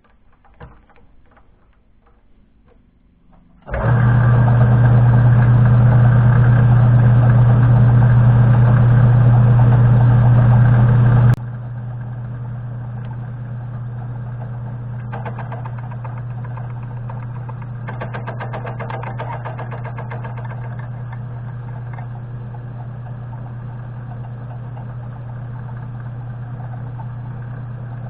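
A few faint clicks, then a benchtop machine tool's electric motor starts and runs with a loud steady hum. About eleven seconds in it drops abruptly, with a click, to a quieter steady running hum.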